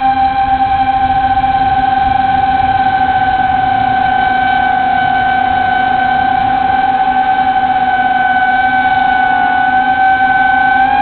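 Small multirotor drone's motors and 5-inch three-blade propellers whining in flight, picked up close by the onboard camera. The pitch holds steady and wavers slightly near the end.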